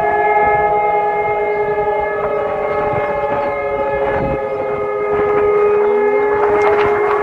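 Civil defence siren sounding a test alarm. Its wailing tone glides slowly down in pitch, with a steady tone held underneath, and a rising tone comes in near the end.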